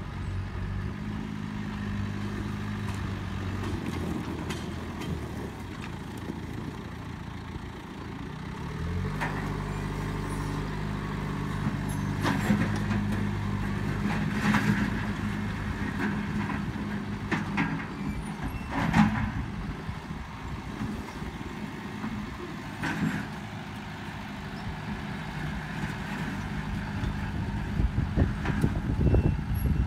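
John Deere loader tractor's diesel engine running steadily, its note shifting about nine seconds in, with several sharp clanks as the loader bucket works gravel on the driveway. Louder rumbling comes near the end.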